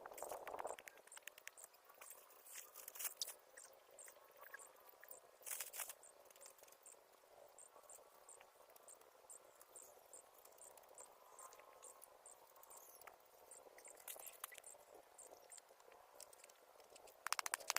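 Faint insect chirping: a short, high chirp repeated evenly, about twice a second. Occasional soft rustles and clicks are heard, with a quick run of clicks near the end.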